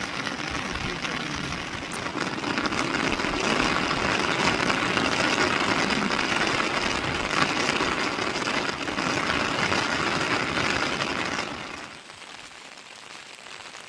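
Steady, loud rushing noise that swells a little after the first couple of seconds and drops off abruptly near the end.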